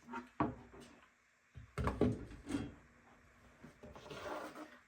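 Hard plastic fridge drawer parts being handled and set down, with several sharp knocks and clatters, then a soft rushing noise near the end.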